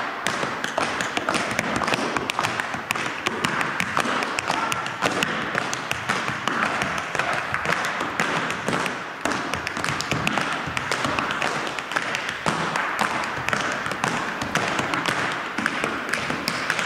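Several tap dancers' shoes striking a wooden floor in rapid, dense clicks that overlap with no pause.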